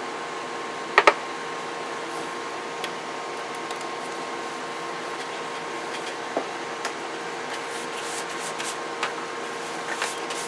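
Steady hiss and faint hum from running electronic test equipment on a bench. There is a sharp double click about a second in, then a few lighter clicks and taps as cables and a CB radio are handled.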